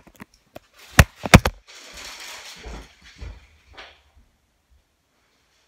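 Handling noise of a phone being moved and covered or set down: two sharp knocks about a second in, the second the louder, then about a second of rustling and a few softer bumps.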